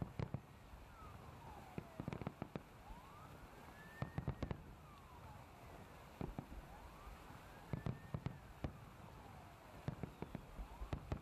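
Salute fireworks shells bursting in clusters of sharp bangs about every two seconds. A siren wails slowly up and down in the background.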